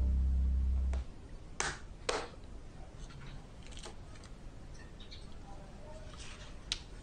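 Background piano music ends on a held chord about a second in. Then quiet handling sounds: two light knocks, and soft paper rustling with a click as a spiral sketchbook page is turned and smoothed down.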